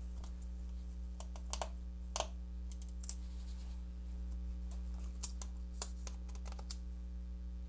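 Scattered small clicks and taps of fingers handling a laptop's plastic cover and internal parts, over a steady low electrical hum.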